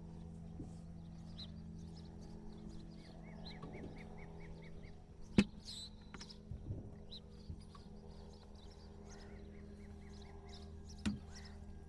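Polaris Ranger utility vehicle's engine idling steadily, with small birds chirping over it and two sharp knocks, the louder about five seconds in and another near the end.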